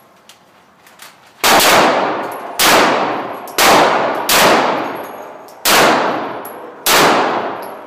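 Six 9mm handgun shots fired at an uneven pace, roughly a second apart, each shot ringing out in a long echo that dies away before the next.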